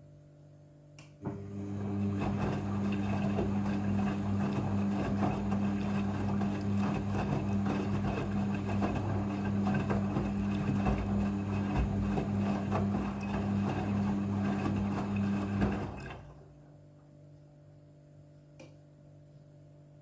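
Midea front-loading washing machine in its rinse cycle: a click, then a steady electric hum with a noisy rush for about fifteen seconds, cutting off suddenly.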